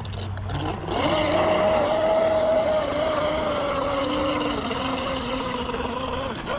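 RC boat motor whining at speed: it throttles up about a second in, holds a steady pitch that sags slightly, then cuts off suddenly near the end.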